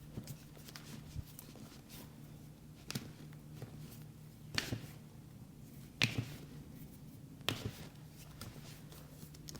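A few sharp cracks about a second and a half apart, the loudest around the middle: small joints of the foot and ankle popping under a chiropractic adjustment. A faint steady low hum runs underneath.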